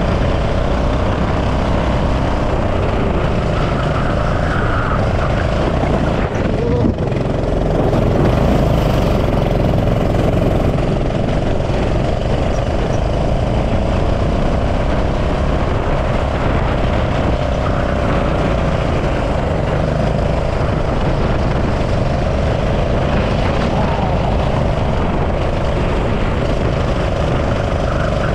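Go-kart engine running at racing speed, its pitch rising and falling steadily with the revs through the corners. It briefly drops once about a quarter of the way through, under a constant rush of noise.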